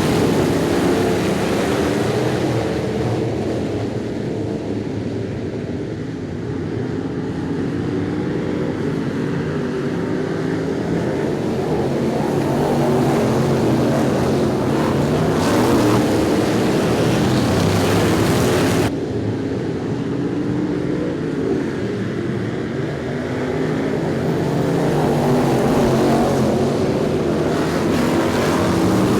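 Street stock race car engines running hard, their pitch rising and falling as the cars accelerate and lift through the turns. The sound changes abruptly a little past halfway.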